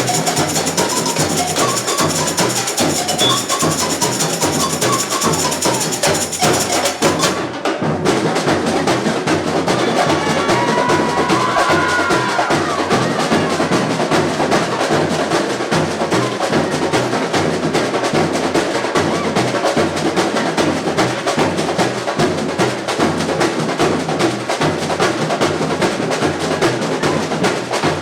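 Samba bateria, a university samba-school percussion ensemble, playing a dense, continuous samba groove of drums and small percussion. The bright high shimmer drops away abruptly about seven seconds in while the drumming goes on.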